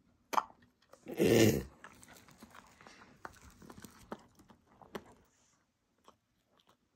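A bluetick coonhound gives one short vocal sound about a second in while waiting for a piece of bagel, followed by faint wet clicks from his mouth.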